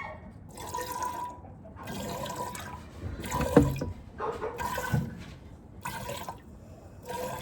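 Streams of milk squirting into a milk pail as a Nubian goat's teat is hand-milked, about one squirt a second, six in all.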